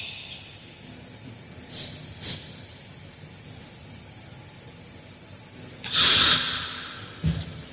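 Pause in a qori's Quran recitation, his breathing picked up by the microphone: two short breaths about two seconds in, then a loud, sharp intake of breath lasting about half a second near six seconds in, as he draws the long breath for the next phrase. A short low thump follows about a second later.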